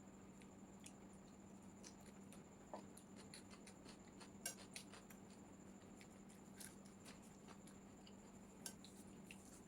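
A person eating noodles: faint chewing and wet mouth clicks, with a few louder sharp clicks about three, four and a half and eight and a half seconds in, over a faint steady hum.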